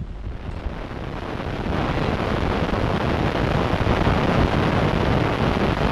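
Wind buffeting the microphone, building over the first two seconds, then blowing steadily.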